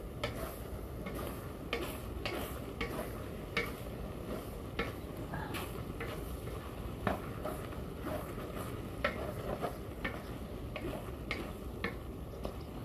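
Wooden spatula stirring and scraping minced meat around a large aluminium wok, giving irregular scrapes and knocks about once or twice a second, over the steady sizzle of the steaming mixture cooking.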